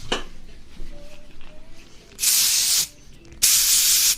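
Two spray bursts, each well under a second, about a second apart, as hair spray is sprayed onto the hair during a haircut's last touch-up.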